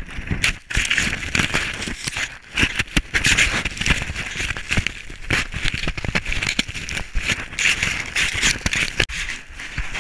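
Sled scraping and crunching through snow with the camera knocking and rattling: a dense, irregular crackle full of small knocks.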